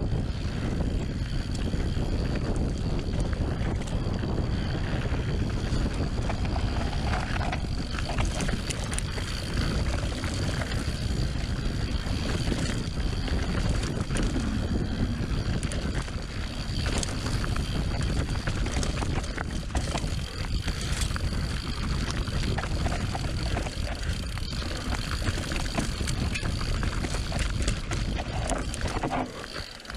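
Mountain bike ridden fast down a dirt trail: wind buffeting the microphone over tyre rumble, with frequent rattles and knocks from the bike over rough ground. The noise eases off just before the end as the bike slows.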